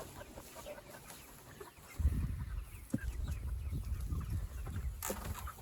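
Chickens clucking. A low rumble comes in about two seconds in and carries on.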